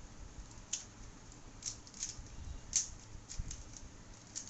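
Plastic 3x3 speed cube clicking as its layers are turned quickly in the hands during a timed solve: irregular, scattered clicks, with a sharper one near the middle.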